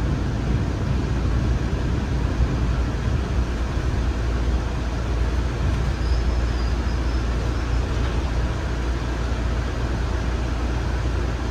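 Steady low rumble of a CRRC-built MBTA Orange Line subway car running on the track, heard from inside the car. A faint high tone comes in briefly about halfway through.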